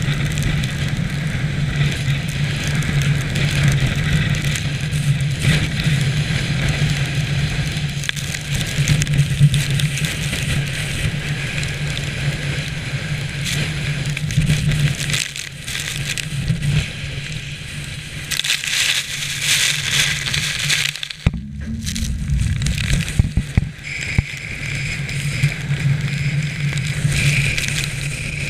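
Storm wind and driven rain and spray battering a GoPro camera housing on a ship in a hurricane: a constant rushing noise with crackling hits, over a steady low hum. The higher noise drops out briefly about two-thirds of the way through.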